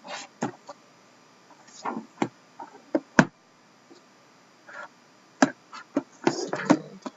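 Sealed cardboard card boxes being handled on a table: a run of irregular sharp taps and knocks, with a brief rustle near the end.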